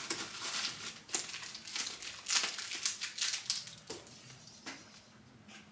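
Plastic bubble-pack packaging crinkling and rustling as it is handled, in irregular crackles that die down near the end.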